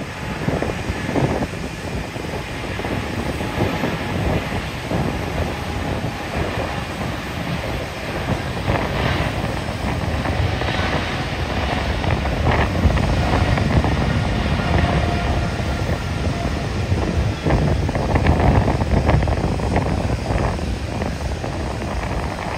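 Jet airliner engine rumble that slowly builds to a peak in the second half and then eases, with wind buffeting the microphone.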